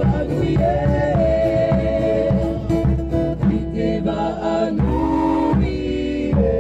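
Live Tahitian drum-dance music: voices singing long held notes over a strummed ukulele and a steady beat of hand drums.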